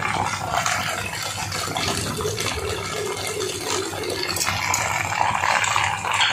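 Malpua batter deep-frying in hot desi ghee in a kadai: a steady crackling sizzle as the pancake fries afloat in the ghee.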